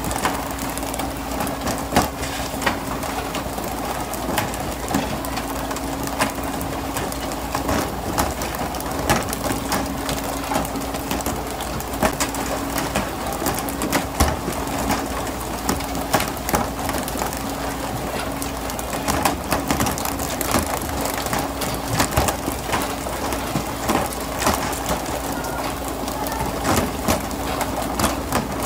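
Tuna being hauled aboard a pole-and-line fishing boat: many irregular sharp knocks and slaps of fish landing and flapping on the deck, over a steady rush of sea water and a faint engine hum.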